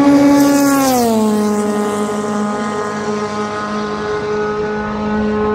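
A race car's engine passing at speed down the straight: its note drops in pitch about a second in as the car goes by, then holds steady while it fades into the distance.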